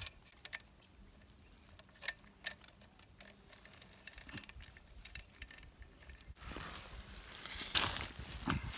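Steel saw chain links clinking and rattling as the chain is worked around a chainsaw guide bar, with one sharp metallic clink about two seconds in. A louder rustle of handling follows for about two seconds near the end.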